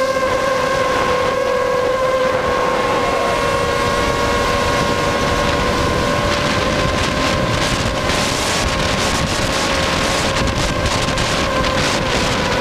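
Electric motors and propellers of a Lumenier QAV250 mini quadcopter whining steadily in flight, recorded by the onboard camera, with wind rushing over the microphone. The wind buffeting turns gustier in the second half.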